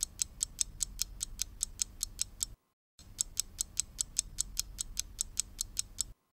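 Quiz-timer ticking sound effect: fast, even clock ticks, about five a second, over a faint low hum. It breaks off for a moment twice, about two and a half seconds in and near the end.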